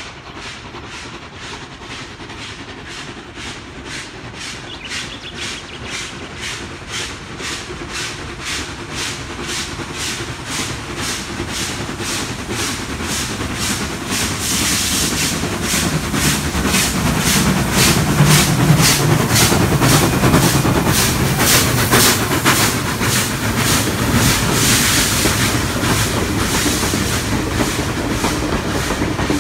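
A steam locomotive approaching and passing, its exhaust beating in a steady rhythm that grows louder, with a low rumble as the engine goes by about two-thirds of the way in. The passenger carriages then roll past with the clatter of wheels on rail joints.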